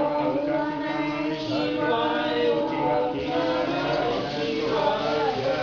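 A group of voices chanting together in unison, a devotional chant with long held notes, during a milk abhishek of a Shiva lingam.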